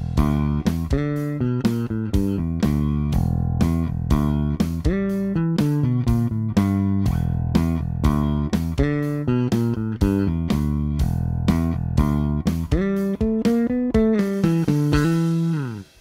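Five-string electric bass strung with D'Addario NYXL nickel-wound 45–130 strings, played fingerstyle alone: a groove with fills ranging over three octaves, note after note plucked in quick succession. Near the end it climbs into high notes, then slides down in pitch and fades out.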